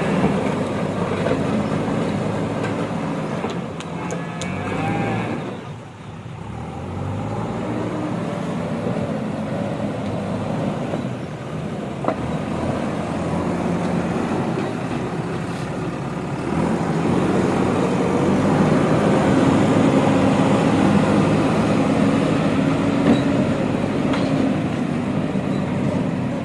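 Diesel engine of a JCB 3DX backhoe loader running as it works, its pitch shifting with the load. It eases off about six seconds in, then runs harder and louder through the second half.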